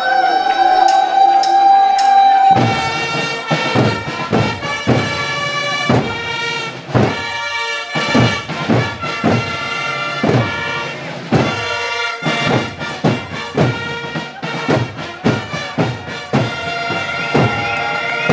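A long held note from a wind instrument, then from about two and a half seconds in a band of wind instruments playing a tune over a steady drum beat of about two strokes a second.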